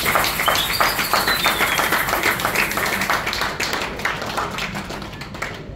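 Audience clapping: dense applause at first, thinning out and fading over the last couple of seconds.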